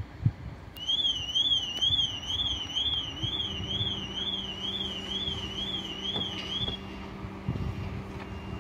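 An electronic warning tone, high-pitched and warbling up and down about twice a second, sounds for about six seconds and then cuts off. A steady low hum starts partway through, and wind buffets the microphone.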